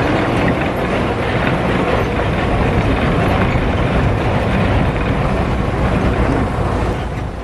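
Steady engine and road noise inside a moving minibus built on a Mitsubishi Canter, its 125 PS turbo diesel running under way.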